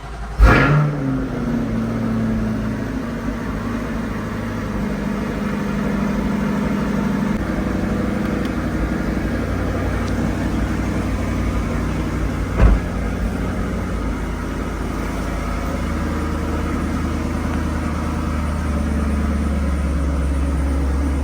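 Car engine starting with a short rev flare about half a second in, then idling steadily, with one brief sharp blip about twelve seconds in.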